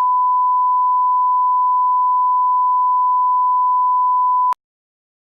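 A steady electronic 1 kHz sine test tone, one pure unwavering beep that cuts off suddenly about four and a half seconds in.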